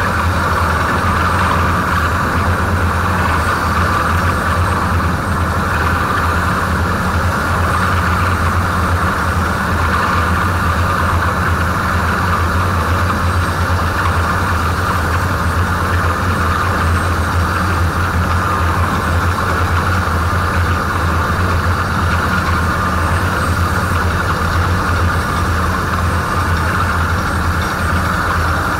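Heavy drilling rig running steadily, a constant loud engine drone with no change in pitch.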